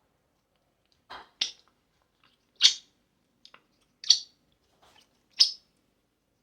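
Pet parrot giving a series of short, sharp, high calls, four loud ones about a second and a half apart with a few softer clicks between.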